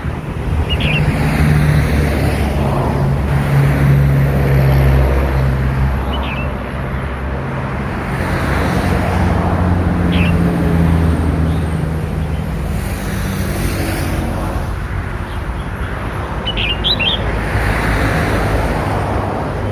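Red-whiskered bulbul chick giving short, high chirps about four times, spread out and a few seconds apart, over a loud steady low rumble.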